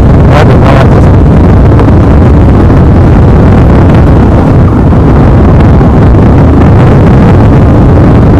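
Motorcycle engine running as the bike is ridden over a rough dirt track, a loud, dense low rumble with wind buffeting the microphone.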